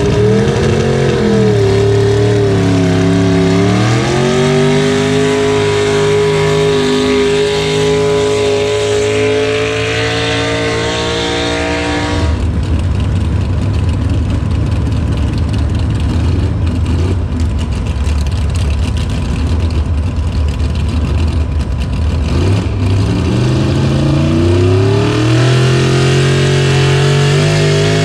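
Truck engine running and being revved, its pitch dipping and rising. About twelve seconds in, the sound changes abruptly to a rougher, lower engine rumble, and the pitched engine sound climbs back near the end.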